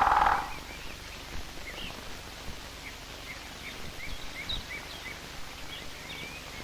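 A black woodpecker's loud, rapid rattling noise, which cuts off about half a second in. After it, small birds chirp sparsely over faint hiss.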